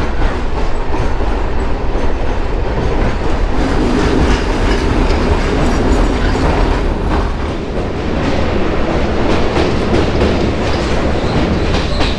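Local electric train running, heard from on board: a steady low rumble with wheels clattering over the rail joints.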